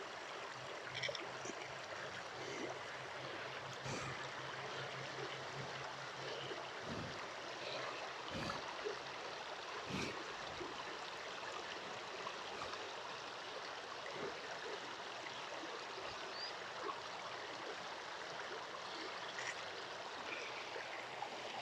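Creek water flowing and trickling steadily, with a few faint low thumps near the middle.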